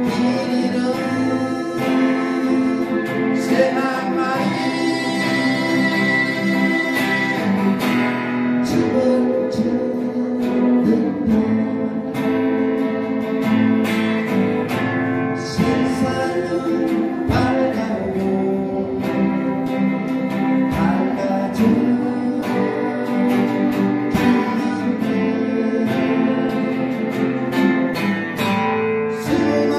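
Live acoustic duet: a woman singing a Korean ballad to two acoustic guitars played together.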